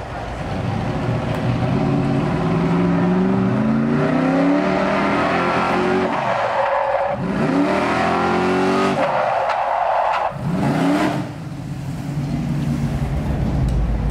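Old pickup truck's engine revving hard as it races down the track, rising in pitch several times, with tires squealing and skidding midway as it brakes to a stop in a cloud of tire smoke.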